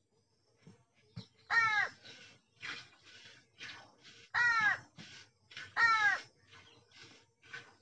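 Crows cawing repeatedly: three loud, harsh caws, the first about a second and a half in and two more a few seconds later, with fainter calls in between.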